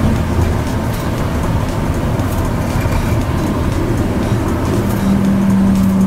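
Running noise of a Kanazawa Seaside Line rubber-tyred automated guideway train, heard from inside the front car: a steady rumble of the tyres on the concrete guideway. A steady hum joins it about five seconds in.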